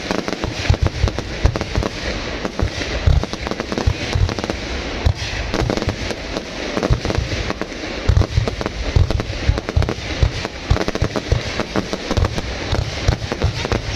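Fireworks going off in a rapid, unbroken barrage of bangs and crackling, with deep booms mixed in throughout.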